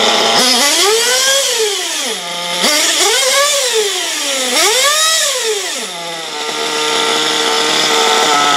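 RB Concepts C4 two-stroke nitro engine in an RC truggy on its first run, revved three times, its pitch climbing and falling back each time, then settling to a steady fast idle.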